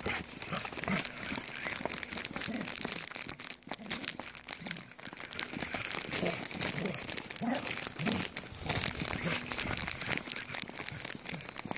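Crackling, rustling handling noise from a hand-held phone microphone rubbing as it is carried on a walk, with a few faint short low sounds in the second half.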